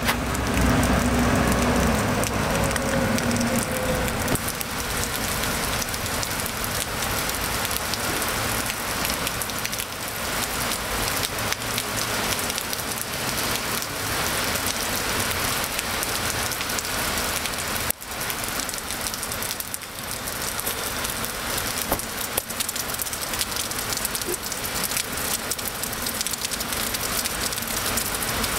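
Steady rain falling on wet stone paving, an even patter throughout. A low hum sits under it for the first four seconds, then fades.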